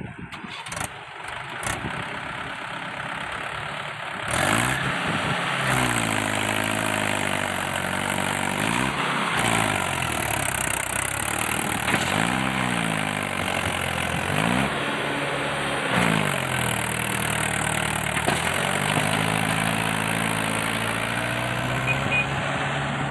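Komatsu PC71 excavator's diesel engine working. Its pitch rises and falls several times as the revs change under hydraulic load, then holds higher and steadier near the end.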